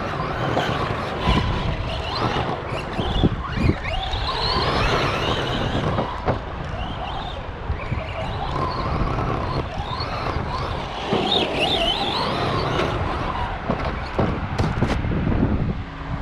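RC monster truck's electric motor and drivetrain whining, rising and falling in pitch as it accelerates and brakes around a track, with tyre noise and a few sharp knocks from landings or hits.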